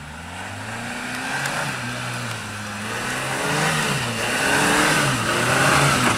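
A Suzuki 4x4's engine revving up and down under load as it climbs a muddy slope, growing steadily louder as it comes closer.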